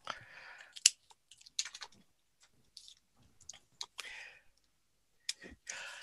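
Felt-tip markers being handled on a desk: a few scattered clicks and light knocks as markers are put down and picked up, with short scratches of marker on paper. Near the end a marker starts stroking on the paper.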